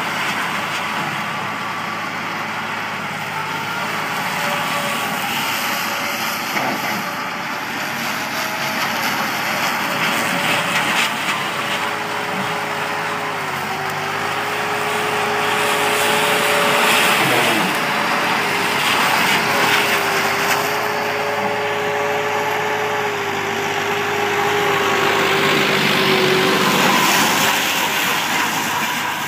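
Massey Ferguson 260 tractor's diesel engine running steadily under load while driving a rear-mounted grass mower through tall grass. A held whine runs through it and drops slightly in pitch about halfway through.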